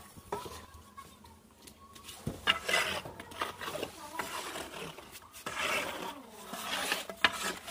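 Metal straight-edge scraping and swishing through wet cement slurry in several strokes as the slurry is spread over brick tiles to fill their joints.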